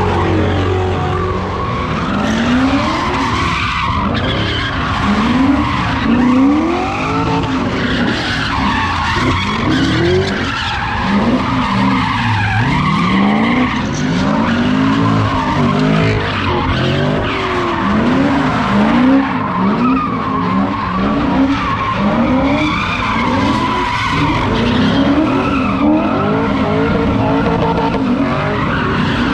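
A car doing donuts with its engine revving up and dropping back again and again, roughly once a second, while its tyres squeal and skid.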